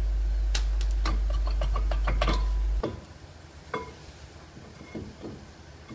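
Front brake caliper of an Opel/Vauxhall Meriva being wiggled off the disc: a quick run of metallic clicks and rattles, then a few clunks with short metallic rings. A loud low hum underneath cuts off abruptly about three seconds in.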